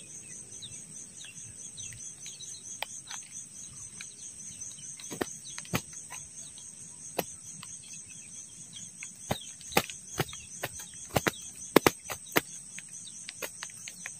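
Steady high-pitched insect chorus with a fast pulse, like crickets trilling. Scattered sharp clicks and taps sound over it, louder and more frequent in the second half.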